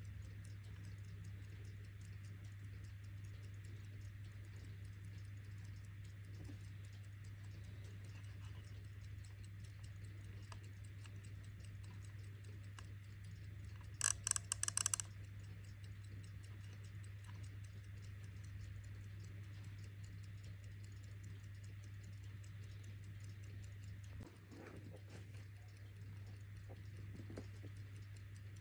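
Cyma mechanical alarm clock ticking steadily over a low steady hum. About halfway through, its alarm bell rings in a short burst of rapid strokes lasting about a second.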